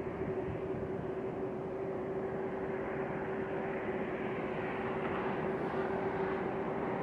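Jet airliner engines running, a steady rush of noise with a constant hum under it; the hiss builds a little in the second half.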